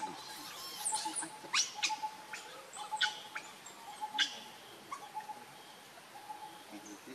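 A series of short, high animal chirps, several in the first four seconds and then thinning out, over a faint short note that repeats about once a second.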